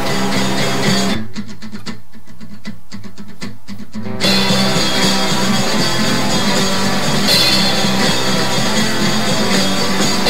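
Guitar-led rock music. About a second in, the treble drops out for some three seconds, leaving a muffled low end, before the full mix comes back.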